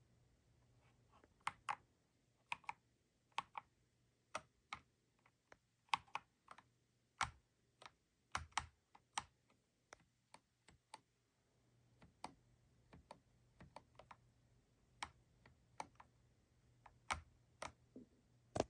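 Keys on an EPOMAKER Shadow-X gasket-mounted mechanical keyboard with linear switches being pressed one at a time. Irregular clicks come about one or two a second, some in quick pairs.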